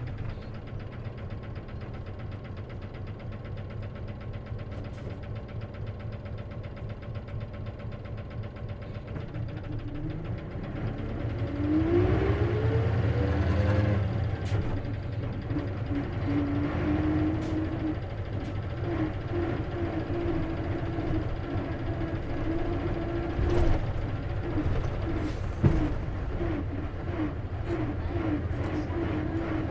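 Cabin sound of an Isuzu KC-LV380N city bus with manual transmission: the diesel engine idles, then pulls away with a rising whine about ten seconds in, and cruises with a steady tone that keeps breaking on and off. The bus is known for an abnormal drivetrain noise, which the recorder suspects can occur in manual-transmission buses. Two sharp knocks come near the end.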